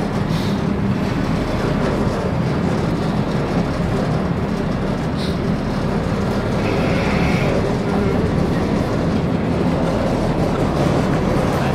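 A passenger ferry's engine running with a steady low hum over wind and water noise as the boat comes in to dock. A brief high tone sounds about seven seconds in.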